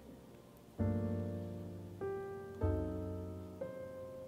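Background piano music: four chords struck about a second apart, each ringing and fading before the next.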